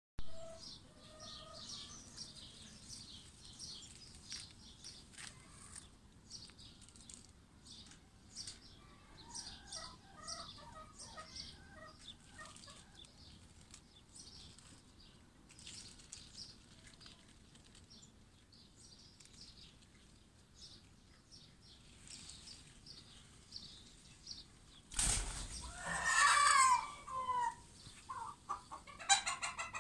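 Small birds chirping in short, high, scattered calls. Near the end there is a sudden loud rustle, then a chicken calls loudly for about two seconds.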